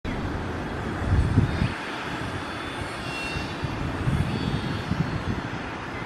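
Steady outdoor rushing noise, with wind gusts buffeting the microphone as low rumbles about a second in and again about four to five seconds in.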